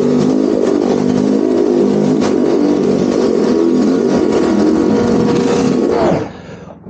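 Pressure washer running, its motor and pump droning steadily under a hiss of spray. About six seconds in it stops and winds down with a falling pitch.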